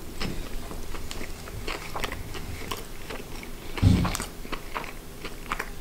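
Close-up mouth sounds of someone biting and chewing deep-fried battered haddock: crisp batter crunching and wet clicking as it is chewed. A louder, deeper thump about four seconds in.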